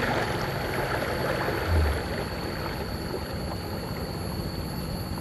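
Steady rush of river water flowing around a kayak.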